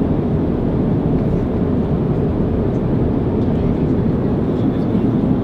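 Steady jet airliner cabin noise in flight: the deep, even drone of engines and rushing air heard from inside the passenger cabin.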